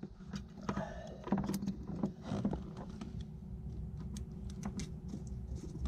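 Scattered small metallic clicks and light scrapes of a feeler gauge's leaves being slipped into the gap between the engine and propeller-shaft coupler flanges, checking the engine alignment.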